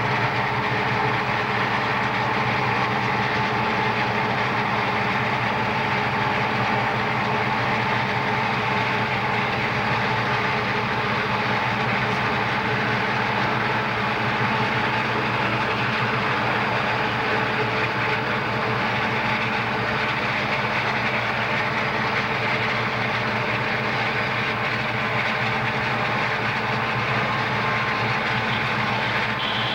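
Southern Pacific diesel-electric locomotives, an SD45T-2 among them, running steadily under power as the train rolls by, heard from a moving car travelling alongside the track.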